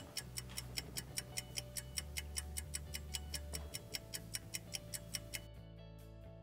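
Fast, even clock ticking, about five ticks a second, used as a sound effect for the wait, over a low music bed. The ticking stops about five and a half seconds in.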